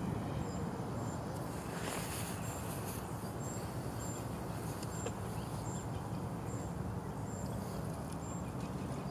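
Steady low outdoor rumble, with faint short high peeps about once a second.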